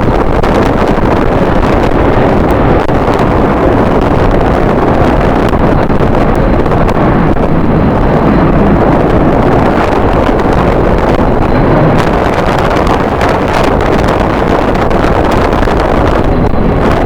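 Strong wind buffeting the microphone: a loud, steady rumbling noise with no break.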